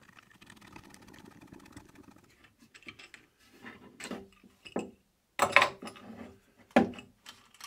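A hand tap turning in a 3D-printed plastic part as it cuts threads, a faint creaking with fine ticks for about the first two seconds. Then wooden band saw guide parts fitted with bolts and washers are handled on a wooden table, a few knocks and clatters, the loudest in the last three seconds.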